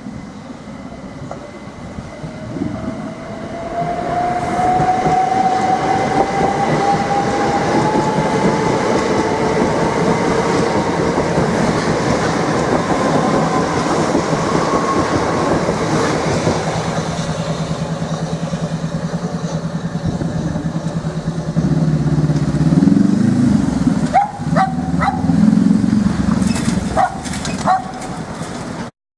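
Southeastern Class 375 electric multiple unit passing over a level crossing: loud running and wheel noise, with a steadily rising whine from the traction motors as it gathers speed. Near the end there are a deeper hum and several short, sharp tones.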